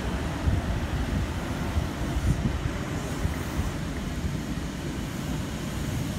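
Wind buffeting the microphone over a steady low rumble of rail and station noise.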